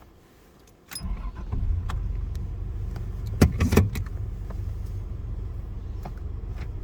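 1990 Toyota 4Runner's engine running with a steady low rumble, which comes in suddenly about a second in. A couple of sharp knocks sound about halfway through.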